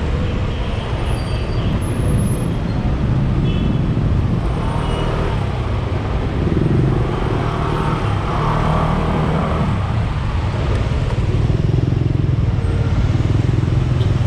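Motorcycle engine running with a steady low rumble amid surrounding road traffic, heard through a camera mounted on the bike.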